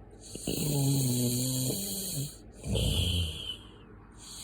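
Snoring in slow breaths: a long breath with a low humming note that sinks slightly, then a shorter rattling breath, and the humming breath starting again near the end.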